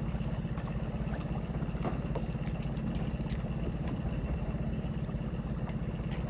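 Boat motor running steadily at slow cruising speed, a fast, even low throb.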